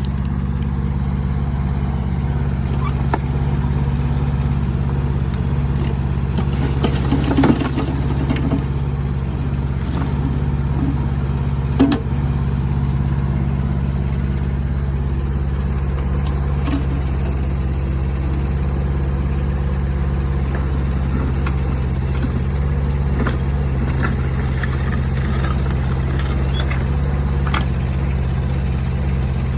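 Diesel engine of a DM200 mini excavator running steadily while digging, with a few knocks, the loudest about seven and twelve seconds in.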